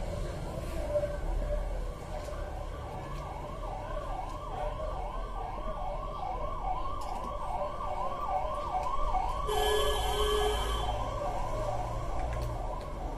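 Emergency-vehicle siren yelping in quick rising-and-falling sweeps, about two a second. A buzzing horn-like tone blares for about a second near the end.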